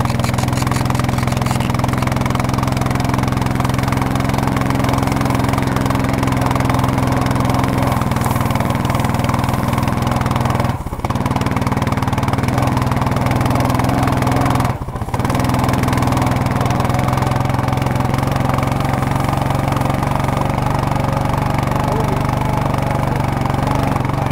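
Engine of the vehicle towing the sled, running steadily with a hiss over it. The sound briefly drops twice, about eleven and fifteen seconds in.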